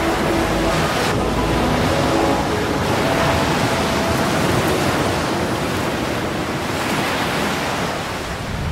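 Steady rushing water and wind noise like surf, matching a fast motor yacht's hull throwing spray. A few faint music notes fade out in the first few seconds.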